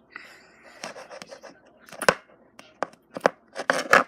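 Sticky slime being squeezed and stretched by hand, giving an irregular run of wet clicks and pops, densest and loudest near the end.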